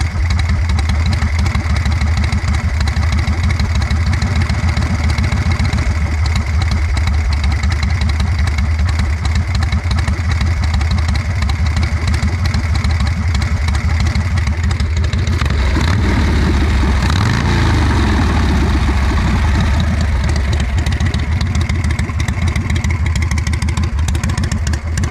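1981 Harley-Davidson Shovelhead V-twin idling steadily on a freshly tuned S&S Super E-style carburetor, with one brief rev about two thirds of the way through. It now idles well, though the owner thinks the carb probably just needs different jets.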